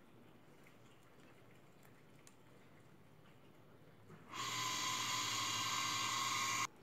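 A few faint light ticks, then about four seconds in a loud, steady rushing hiss starts suddenly, holds even for a little over two seconds and cuts off abruptly.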